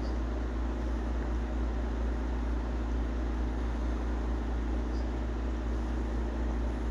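Steady low hum and hiss of background noise, even throughout, with no distinct knocks, crackles or other events.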